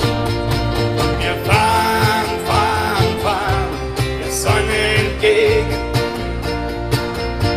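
A live band playing a country-style song, with guitars over a steady beat.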